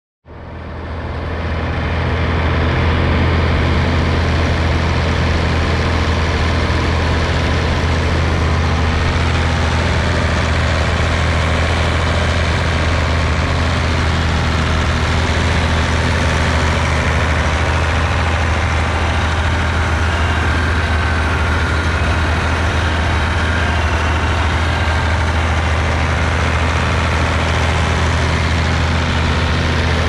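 Tractor engine running steadily at a constant speed, fading in over the first couple of seconds.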